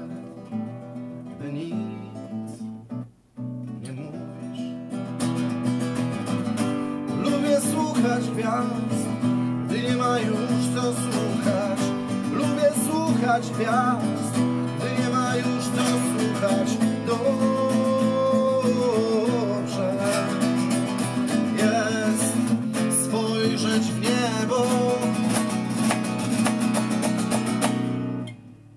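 Acoustic guitar being played, a plucked melody over a steady bass. It is softer for the first few seconds, with a short break, fills out from about five seconds in, and stops just before the end.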